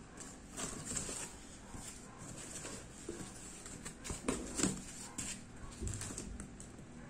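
Unboxing handling sounds: a foam packing sheet and cardboard box scraping and knocking, with plastic-bagged wiring rustling, in short irregular clicks and rubs. The loudest knocks come a little past the middle.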